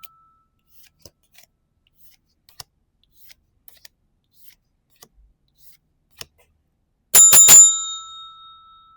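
Faint light clicks, then about seven seconds in a small bell is struck rapidly about four times and rings out.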